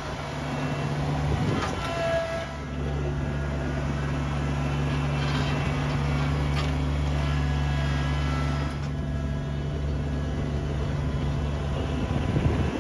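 Kubota BX compact tractor's small diesel engine running steadily under work, with a few short knocks. Its note drops slightly about nine seconds in.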